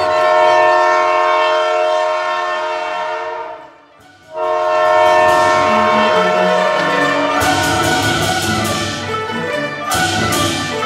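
Steam locomotive whistle blowing two long, steady chord blasts with a short break between them. Orchestral music with drum strikes comes in about two-thirds of the way through.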